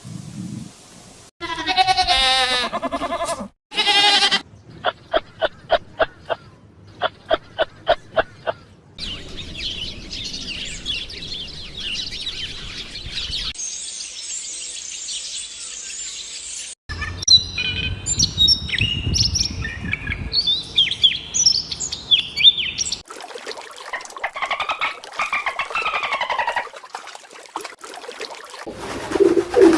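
A string of different animal calls spliced one after another, changing abruptly every few seconds. Among them are a warbling call, a run of short evenly spaced pulses, and bird chirping.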